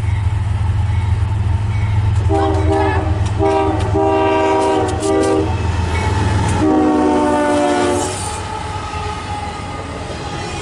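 Diesel freight locomotive's multi-chime air horn sounding a series of blasts, the longest about four seconds in and the last ending near eight seconds. Under it runs the low rumble of the passing train, which drops away about six and a half seconds in.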